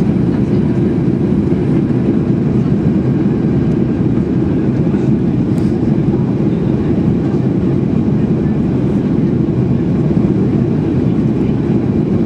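Steady in-flight cabin noise of a Boeing 737-800 airliner: an even, unbroken rumble of engines and airflow around the fuselage.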